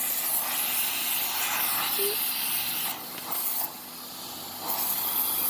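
Electric pressure washer jet spraying onto wooden fence boards with a steady hiss. The spray stops briefly about three seconds in and again for about a second just after, then starts again.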